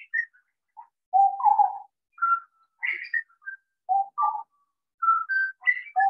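A pair of grey butcherbirds singing a duet, the two birds calling to each other in theme and variations. Clear whistled notes come in short phrases with brief gaps between them.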